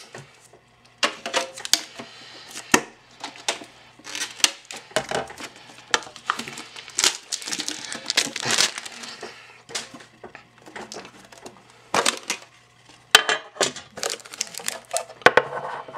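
Clear plastic shrink wrap being cut and pulled off a metal trading-card tin, crinkling in irregular bursts with a few sharp clicks.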